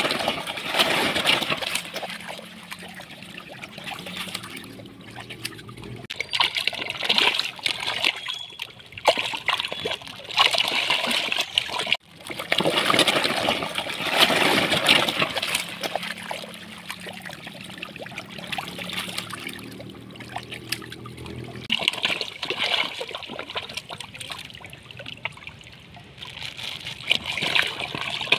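A mass of catfish thrashing at the water's surface, with repeated surges of splashing and slapping water that rise and fall every few seconds.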